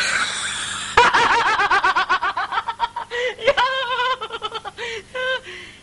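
A woman laughing loudly in a high voice. A breathy gasp gives way, about a second in, to a long run of quick cackles, which break into shorter fits of laughter near the end.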